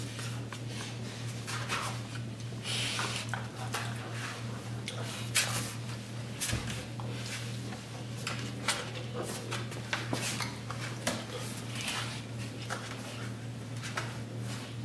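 A grizzly bear cub and a goldendoodle wrestling on a tile floor: irregular scuffling with scattered sharp clicks of paws and claws on the tiles, the sharpest about five seconds in, over a steady low hum.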